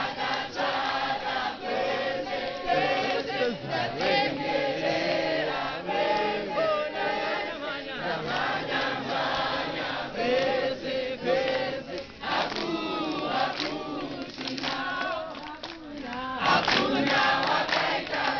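A large crowd of scouts singing and chanting together in a group song, with clapping among the voices.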